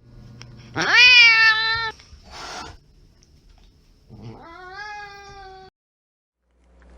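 An angry cat yowling: a loud drawn-out call that sweeps up and holds for about a second, a short hiss, then a second, quieter yowl that rises and slowly sags before cutting off.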